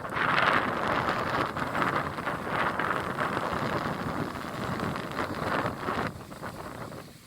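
Strong, gusty wind buffeting the microphone, rising and falling in waves, then easing about six seconds in.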